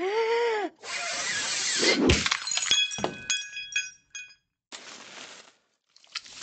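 Talking Tom Cat app's birthday-cake gag sound effects: a short cartoon vocal that slides up and down, a second of hiss, then a heavy thud as the cake hits his face. A run of glassy tinkling clinks follows, and softer rustling and a couple of knocks come near the end.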